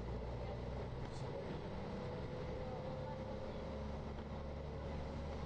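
Steady low drone and road noise of a moving vehicle driving along a wet, flooded street.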